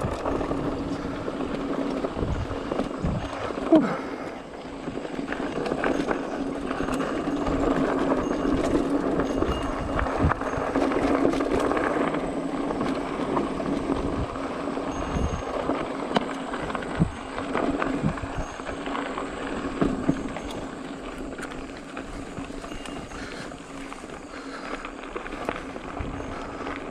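Mountain bike rolling fast down a loose dirt and gravel trail: tyres crunching over gravel and the frame and parts rattling under a steady hum, with sharp knocks over bumps, the loudest about four seconds in.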